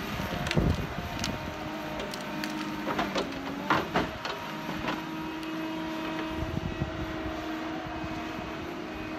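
Tracked forestry harvester's engine running steadily while its boom and head work through brush and logs, with several sharp cracks of wood snapping and splintering in the first four seconds.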